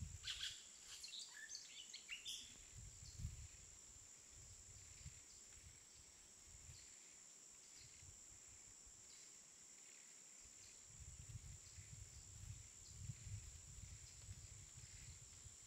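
Near silence: faint outdoor ambience with a few short bird chirps in the first couple of seconds, a steady thin high-pitched whine throughout, and low rumbling near the start and again in the last few seconds.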